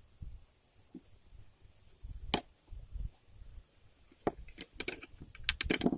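Folding pocket knives being handled: a single sharp click about two seconds in, then a quick run of clicks and clacks of hard knife parts near the end.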